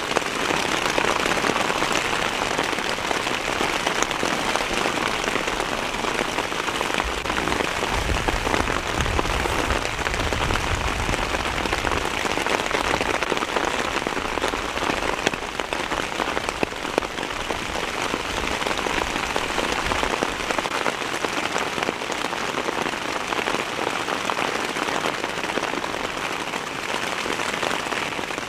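Heavy rain pattering steadily, a dense hiss of drops. A low rumble joins it for a few seconds about eight seconds in.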